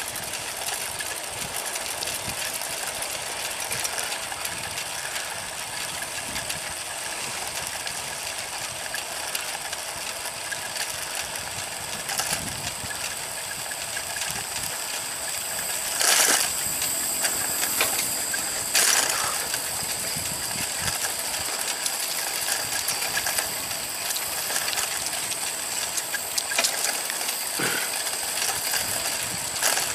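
Bicycle rolling along an asphalt path, with a steady mechanical whirr of the chain and hub. Two sharp clatters come about halfway through, a few seconds apart.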